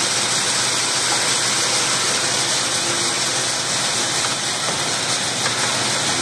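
Gravity table separator running, a steady loud rushing noise from its air blower and vibrating deck as it sorts beans.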